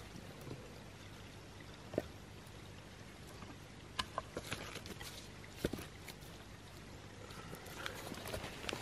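Dead wooden sticks being laid side by side on bare soil, with several sharp knocks of wood on wood about two, four and nearly six seconds in, over a steady faint rushing background.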